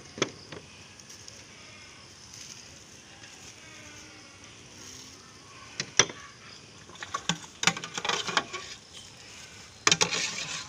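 Thin plastic bags rustling and crinkling in short bursts while meatballs are bagged, with a few sharp clicks and knocks in between, one loud click about six seconds in.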